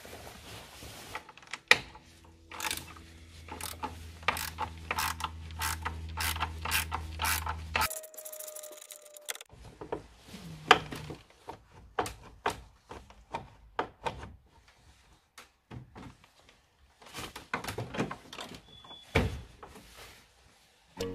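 Ratchet wrench clicking in a steady run of strokes as bolts are turned, over a low steady hum that cuts off about a third of the way in. After that come scattered metallic clicks and knocks of tools and parts, one louder knock among them.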